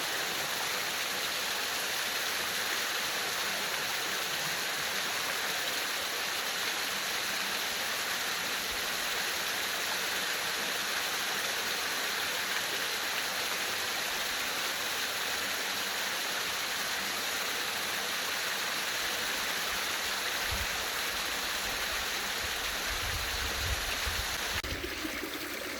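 Stream running: a steady, even hiss of rushing water, with a low rumble coming in about twenty seconds in.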